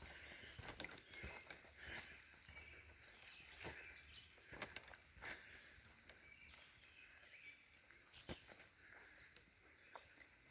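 Faint woodland sounds: high bird chirps in short, quick falling runs, twice, with scattered small clicks and ticks.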